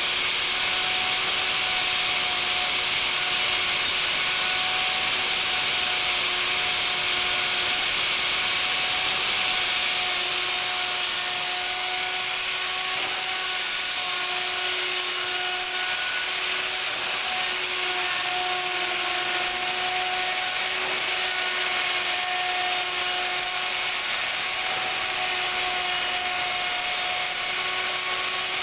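Router motor running with a steady whine as its bit cuts wood from a workpiece turning slowly on a lathe, a little quieter from about ten seconds in.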